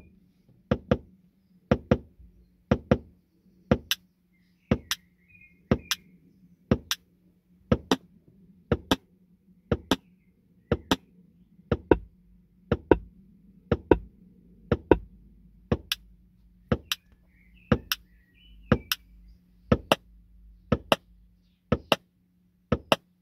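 Helix DSP automatic time-alignment test signal: sharp clicks played through the car's speakers, mostly in pairs about one pair a second, the signal jumping between two speakers so the DSP can measure the time difference between them. A faint steady hum lies underneath.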